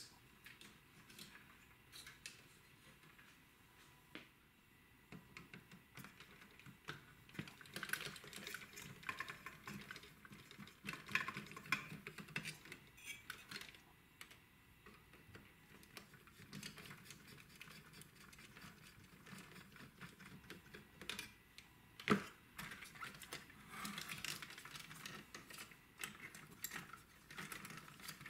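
Light clicks and rattles of small plastic wire-harness connectors being unplugged and handled on a mini hi-fi's circuit boards, with one sharper knock late on.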